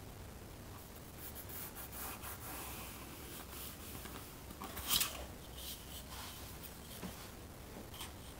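Pencil drawing straight lines along a wooden ruler on drawing paper, with faint scratching strokes and the ruler rubbing across the page as it is shifted to the next line; a brief louder scrape about five seconds in.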